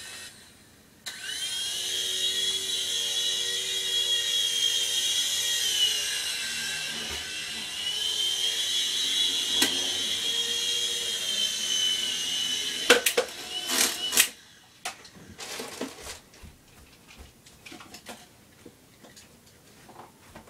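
Toy remote-control helicopter's small electric rotor motors whining steadily, starting about a second in, the pitch dipping slightly and rising again. A few sharp clicks come near the end of the whine, which cuts off about fourteen seconds in.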